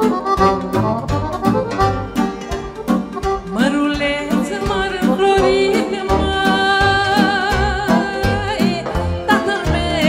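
Romanian folk song with a band playing over a steady beat; a woman's voice comes in about three and a half seconds in, singing long held notes with vibrato.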